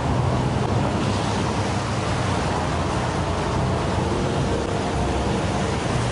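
Steady outdoor rushing noise with a low rumble underneath, unbroken throughout.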